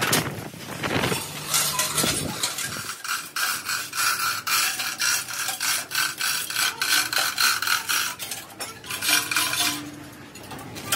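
Wind gusting on the microphone for the first couple of seconds. Then a hand-operated chain hoist is worked, its chains rattling through the hoist with rapid metallic clicking and a faint ringing.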